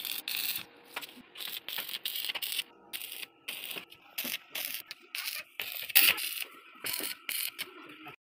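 Irregular metallic clicking and rattling of a mechanism being worked, with one louder clack about six seconds in; the sound cuts off just before the end.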